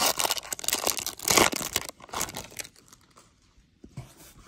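Foil wrapper of a trading-card pack being torn open, with dense crinkling for about two seconds and a loud rip about one and a half seconds in. After that come only faint taps as the cards are handled.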